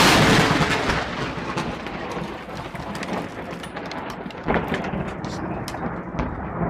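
Thunder from a nearby lightning strike: a loud crack at the start that fades into a long rumble, with scattered sharp clicks over it.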